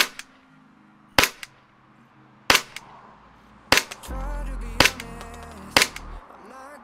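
Gas-powered airsoft Glock pistol firing single shots, six sharp cracks about one every second and a bit. Background music comes in about four seconds in.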